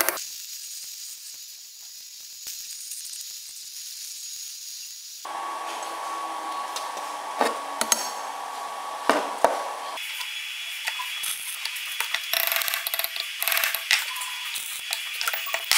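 A few sharp taps and clinks of a hammer and tools on a steel workpiece over a steady hiss, with the background changing abruptly twice.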